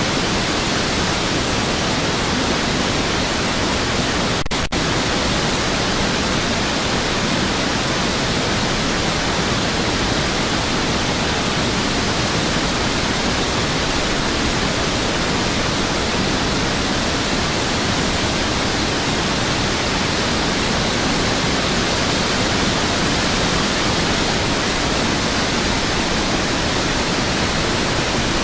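Steady roar of a flooded river's rushing whitewater, an even rush of noise with no let-up, broken only by a brief dropout about four and a half seconds in.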